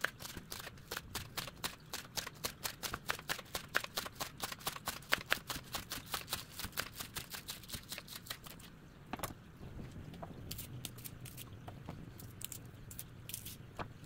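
Kitchen knife chopping vegetables on a cutting board: rapid, even strokes several a second for about eight seconds, then slower, scattered cuts.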